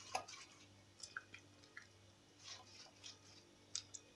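Faint soft wet dabs and strokes of a silicone pastry brush spreading egg-yolk wash over rolled pastry cigars, with a few light clicks scattered through.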